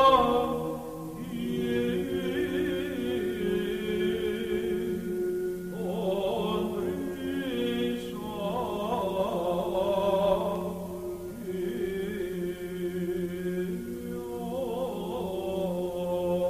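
Church chant in the Byzantine style: voices sing a slow melody over a steady held low drone note. The melody drops out briefly a few times and comes back in while the drone carries on.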